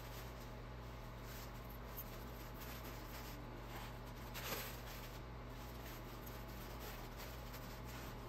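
Faint rustling of paper as Christmas ornaments are wrapped and packed into a box, with one slightly louder brief rustle about four and a half seconds in, over a low steady hum.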